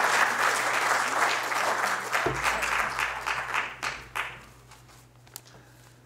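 Audience applauding, the clapping thinning out and dying away about four seconds in.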